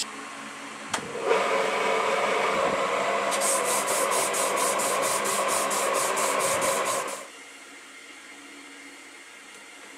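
Damascus steel knife blade being hand-sanded with an abrasive strip, quick back-and-forth strokes about four or five a second over a steady hum. It stops about seven seconds in, leaving a quiet hum.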